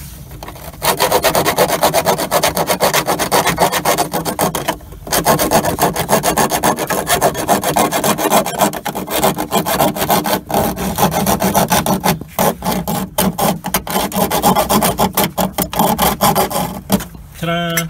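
A bare hacksaw blade gripped in pliers sawing by hand through the rusted sheet-steel bulkhead of a car, in fast back-and-forth strokes. It starts about a second in, pauses briefly about five seconds in, then carries on until just before the end.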